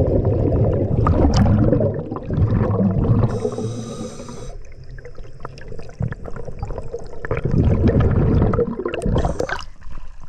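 Scuba diver breathing through a regulator underwater: a hissing inhalation about three seconds in and again near the end, with rumbling, gurgling exhaled bubbles between.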